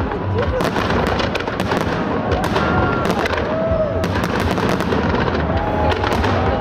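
Fireworks display: aerial shells and ground effects going off in a dense, continuous barrage of bangs and crackles, with a deep rumble of booms underneath.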